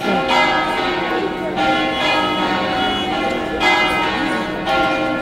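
Church bells pealing, several bells struck over and over so that their tones ring together, with fresh strikes every second or two.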